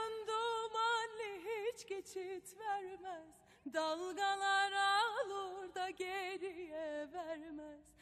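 A woman singing a slow, heavily ornamented melody unaccompanied, with a short break about three and a half seconds in.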